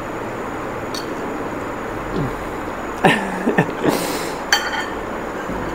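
Children eating noodles with forks from plates: a few short vocal noises and a breathy sound about four seconds in, then a fork clinking against a plate with a brief ringing, over a steady background hiss.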